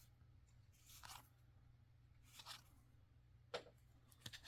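Faint swishes of Magic: The Gathering cards sliding against each other as they are flipped through one at a time, four soft strokes spread over a few seconds.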